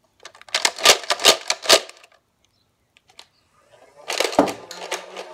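Boomco Spinsanity 3x toy dart blaster being worked: a quick run of sharp plastic clicks and snaps, then a second burst about four seconds in.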